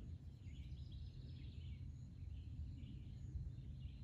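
Outdoor background sound: a steady low rumble with small birds chirping and twittering faintly throughout.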